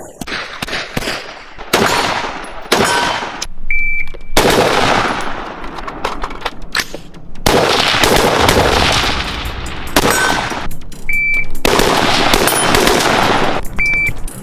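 Real firearms firing in long rapid strings of shots, with single shots in between. A short high beep sounds three times.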